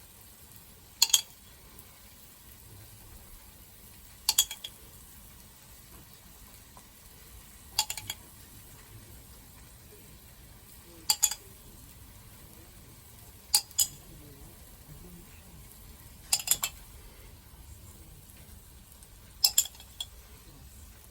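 A metal utensil clinking sharply against a hard dish or container, seven times at roughly three-second intervals, over a faint steady background hiss.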